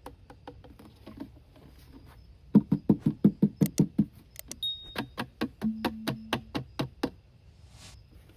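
Rapid runs of sharp clicks and knocks, about five or six a second. A loud run comes a little over two seconds in, followed by another run with a brief low hum under it, and they stop about a second before the end.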